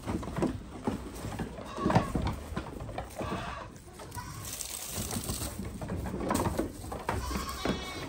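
Goats bleating several times, the loudest call about two seconds in, with scattered knocks and shuffling between the calls.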